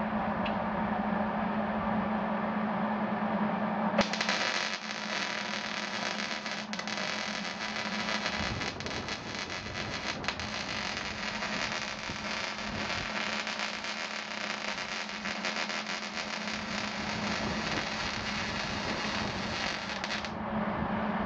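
Electric arc welding on an ATV frame: the arc strikes about four seconds in, crackles steadily for about sixteen seconds, then cuts off. A steady low hum runs underneath.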